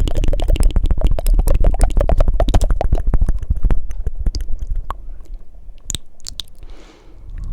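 Fast tongue fluttering and mouth clicks made right up against a microphone, a rapid run of clicks over a low breathy rumble. About four seconds in the run thins out to a few separate clicks.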